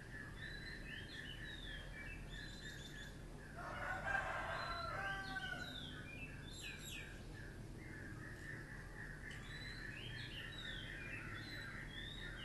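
A rooster crows once, a call of about two seconds starting around three and a half seconds in, the loudest sound here. Behind it small birds chirp steadily, with a fast repeated note at about four a second.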